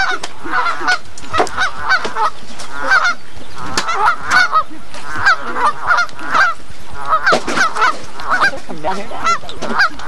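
A flock of Canada geese honking over and over, several birds calling over one another in quick succession.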